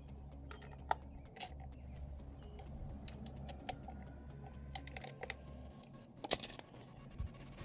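Scattered light clicks and knocks of hand tools and parts being handled during motorcycle reassembly, with a louder clatter about six seconds in, over a low steady hum.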